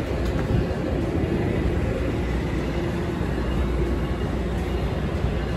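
Steady low rumble of a train standing at the platform, with a faint hum through the middle.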